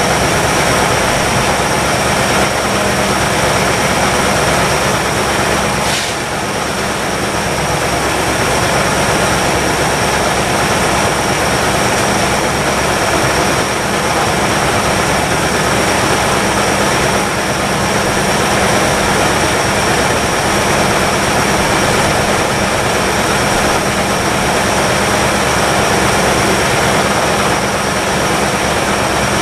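1962 Chevrolet engine running steadily on fast idle while it warms up on fresh oil after sitting 35 years. The sound is even and loud throughout, with one brief click about six seconds in.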